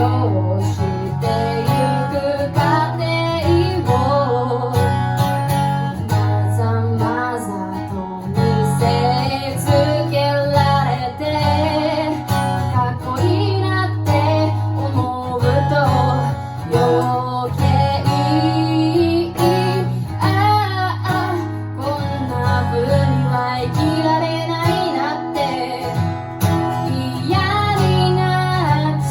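A woman singing a slow song over strummed acoustic guitar.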